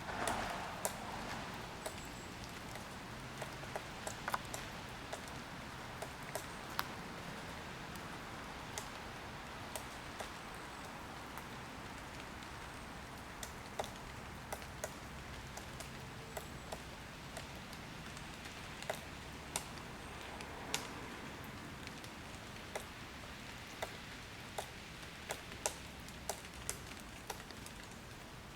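A woodpecker pecking at wood: single sharp taps, irregularly spaced, over a steady background noise.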